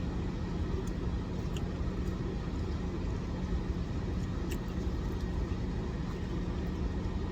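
Steady low hum of a car's interior with the engine running, with a few faint small clicks of eating.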